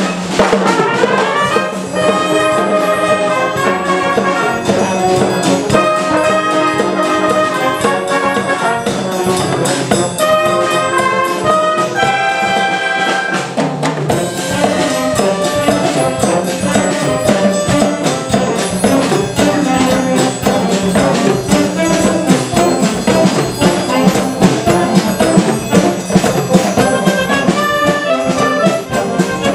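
Wind band of trumpets, trombones, saxophones, clarinets and flutes over a drum kit, playing a mambo. A quick rising run sweeps up in the first second or so.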